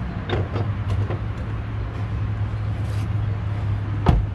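Car engine idling with a steady low hum, a few light clicks in the first second and one sharp knock near the end.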